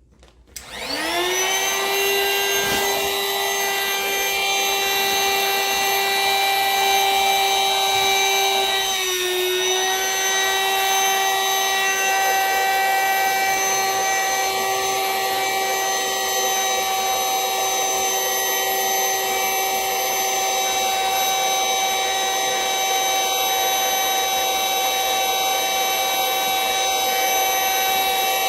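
Vacuum cleaner switched on about a second in, spinning up to a steady high whine as it draws the air out of a vacuum storage bag of plush toys. The pitch dips briefly at about nine seconds, then holds steady.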